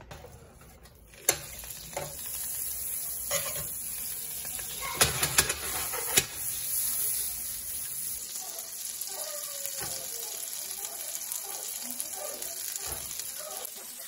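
Butter sizzling in a hot nonstick skillet on an electric coil burner, with buffalo-fish patties frying in it: a steady high hiss that starts about a second in. A few sharp knocks in the first half.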